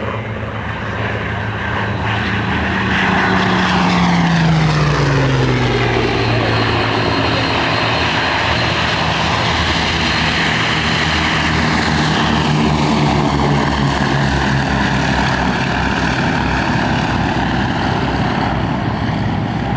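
Boeing B-17G's four Wright Cyclone nine-cylinder radial engines droning in a low pass, growing louder and then dropping in pitch about four to six seconds in as the bomber goes by, and staying loud as it flies away.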